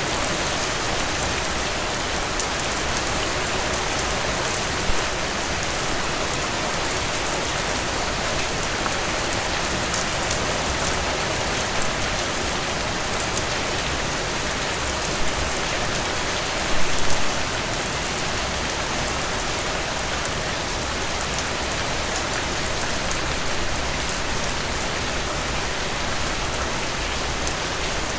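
Steady rainfall: an even, dense hiss with individual drops ticking through it. A few louder splashes stand out, with a brief cluster about two-thirds of the way through.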